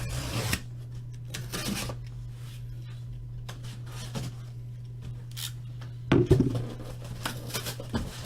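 A large cardboard shipping case being cut and pulled open: short rasping cuts through tape and cardboard with scattered handling clicks, and a louder rustle and knock of cardboard about six seconds in.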